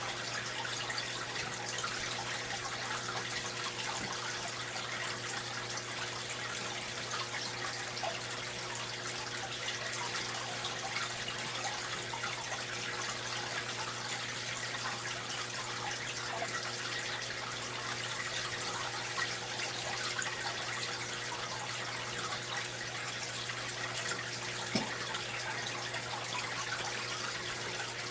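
Aquarium water circulating with a steady trickle, over a low steady hum.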